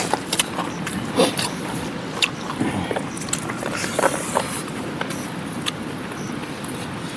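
Steady rush of a mountain river, with scattered sharp clicks and knocks over it in the first half.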